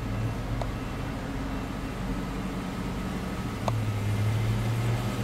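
Steady low background hum of a large hall, with two faint clicks; the hum gets louder a little after halfway through.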